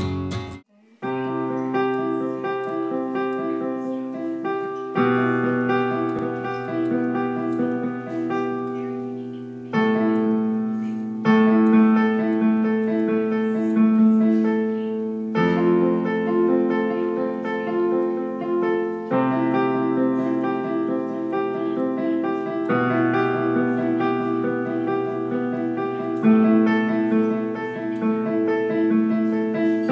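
Digital piano played by hand, starting about a second in: a slow piece of repeated chords over sustained low notes, the harmony changing every three to four seconds.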